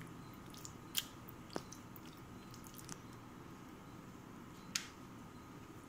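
Faint wet squishing of a hand rubbing thick masala paste onto fish steaks in a stainless steel bowl, with a few short sharp clicks, the loudest about a second in and another near the end.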